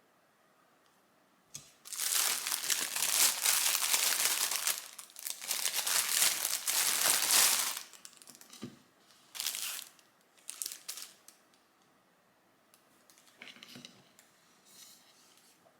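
Packaging being handled and unwrapped, crinkling: one long stretch of about six seconds, then a few short crinkles.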